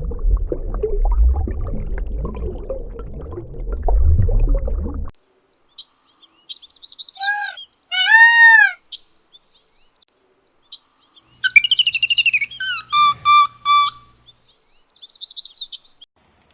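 A low, rough rumble for about the first five seconds. Then, after a short pause, a series of bird calls: clear arched whistles, quick chirps and a few repeated notes.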